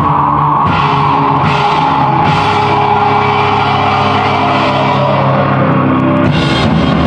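Metal band playing live: distorted electric guitars over a drum kit with cymbal crashes, one long note falling slowly in pitch across the passage.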